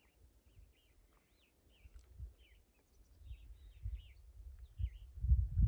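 A songbird singing a quick run of short chirping notes, over a low rumbling noise that grows much louder near the end.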